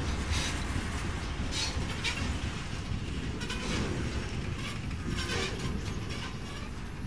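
HO-scale model freight train of covered hopper cars rolling along the track: a steady low rumble of wheels on rails, with irregular sharp clicks every second or so.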